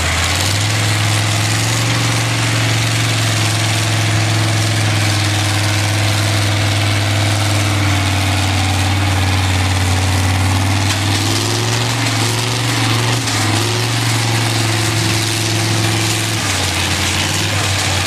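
Tractor engine running steadily with a loud, low drone. Its pitch wavers briefly a little past the middle and settles slightly lower near the end.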